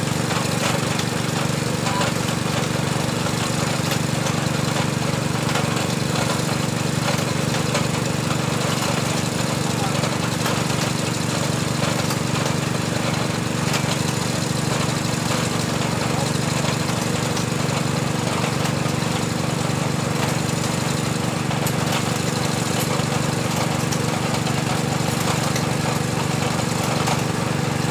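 Small engine of a water-well drilling machine running steadily as it drives the drill.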